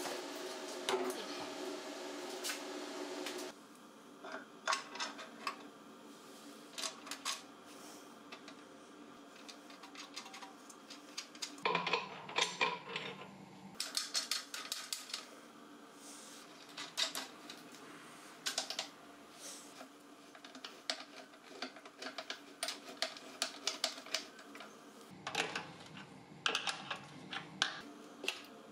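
Irregular clicks and light metallic taps of tools and parts being handled at a workbench, with a steady hum for the first few seconds.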